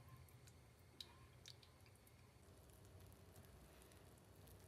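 Near silence: faint low room hum with a few soft clicks.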